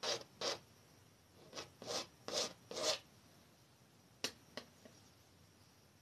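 Short strokes of a brush rubbing across an oil-painted canvas, about six quick rasping strokes in the first three seconds. Two sharp clicks follow about four seconds in.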